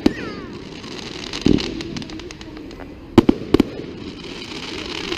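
Fireworks display: sharp bangs of bursting shells, one right at the start, one about a second and a half in, and three in quick succession at about three to three and a half seconds, with crackling and fizzing from the bursts in between.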